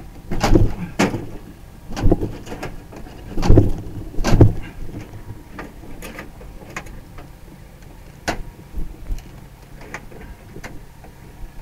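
Corrugated metal siding being pried at and struck with a hand tool. There are half a dozen loud bangs and clatters in the first four and a half seconds, then lighter scattered clanks.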